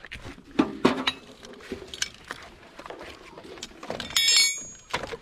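Metal objects clinking and knocking together as scrap is handled, with a couple of heavier knocks early and a bright metallic ring about four seconds in.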